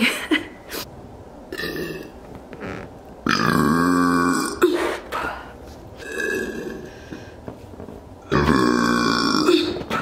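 A woman burping into the neck of a latex balloon to inflate it: two long, loud burps, the first about three seconds in and the second near the end, with quieter short sounds between.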